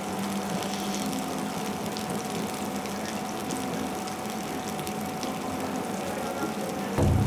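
Steady hum and hiss of a dining room, with faint clicks of a porcelain spoon against a small ceramic bowl. A louder low hum cuts in suddenly near the end.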